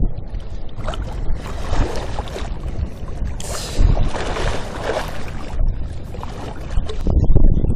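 Wind buffeting the camera microphone with a steady low rumble, while seawater washes and splashes against the breakwater in hissing surges, the strongest about three and a half seconds in.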